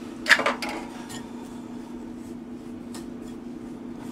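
Metal spoon clinking and scraping against a ceramic mixing bowl while stirring brown sugar and cinnamon. A quick cluster of loud clinks comes about a third of a second in, then a few lighter taps, over a steady low background hum.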